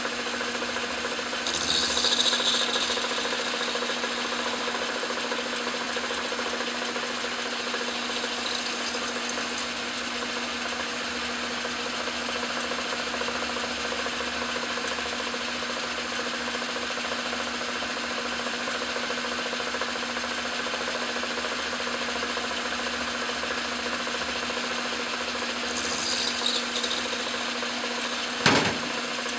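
Craftsman Atlas metal lathe running with a steady hum while its cutting tool faces the end of a brass hex bar. The cut grows louder and hissier briefly about two seconds in and again near the end, followed by a single sharp knock.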